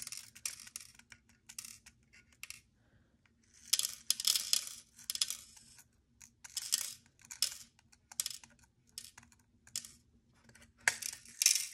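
Small Swarovski crystal rhinestones clicking and rattling against a clear plastic compartment box as they are pushed around and dropped into its sections by hand. The clicks come in short bursts of rapid ticks with pauses between them.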